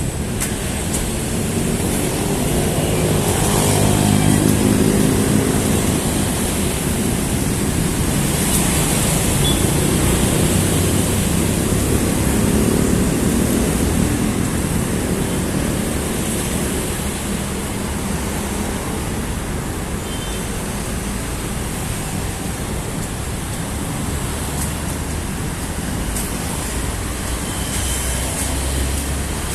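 Continuous road traffic noise with vehicles passing. It swells about four seconds in, with an engine drone from a heavier vehicle going by, and again around twelve seconds in.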